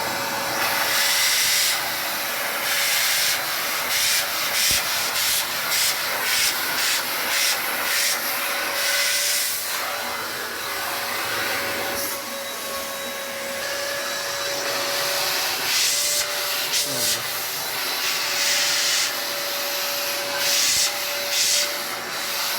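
VO.TEMM 4-in-1 vacuum cleaner running, with a steady motor whine over its suction hiss. Through it comes repeated rubbing as the nozzle is worked over a dusty surface.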